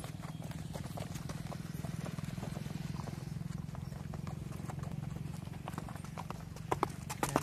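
Hoofbeats of horses moving around a sand riding arena, over a steady low hum. A few sharp clicks come near the end.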